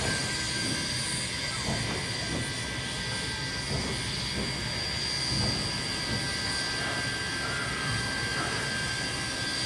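NSW 35 class steam locomotive 3526 hissing steam as it stands on a slowly turning turntable: a steady hiss with thin high steady tones in it.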